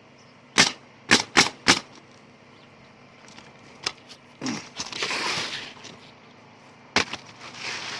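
Nails being driven through an asphalt shingle: four sharp shots in quick succession about half a second in, a longer rasping sound in the middle, and one more shot near the end.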